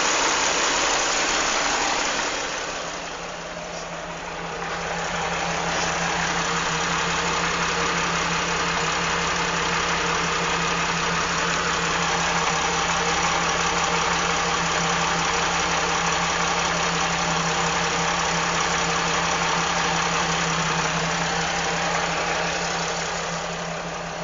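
Jeep Wrangler TJ engine running steadily, with a steady low hum under a hiss; it dips in loudness about two seconds in and comes back up about three seconds later.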